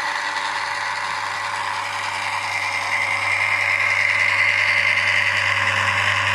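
Electric drill's brushed commutator motor and gearbox running under heavy load, its chuck held back by a gloved hand. The closed-loop speed controller with a tachometer sensor keeps the spindle turning at the set speed, so the motor draws ever more power instead of slowing. A steady low hum under a whir grows louder about three seconds in.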